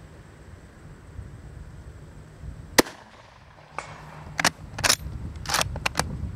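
A single shot from a Type 38 Arisaka bolt-action rifle firing 6.5x50 Arisaka, about three seconds in. It is followed by a quick series of metallic clicks and clacks as the bolt is worked to eject the case and chamber the next round.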